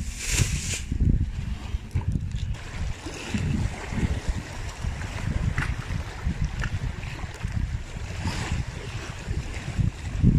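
Wind rumbling on the microphone over small sea waves splashing against rocks. A plastic bag crinkles briefly about half a second in.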